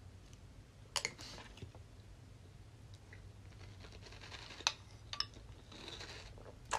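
Faint clicks of a metal spoon against a ceramic bowl during eating: one about a second in and a few more later.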